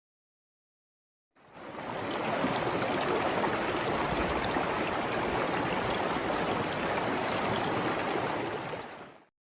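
Running water flowing steadily, like a stream. It fades in after about a second and a half of silence and fades out near the end.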